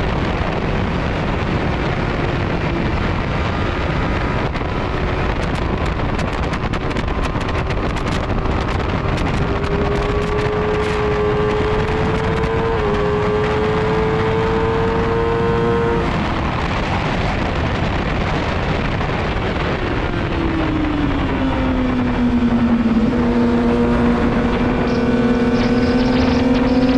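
Motorcycle engine at speed under heavy wind rush on the microphone. The engine note climbs, breaks off about sixteen seconds in, falls for a few seconds and then climbs again as the bike leans into a corner.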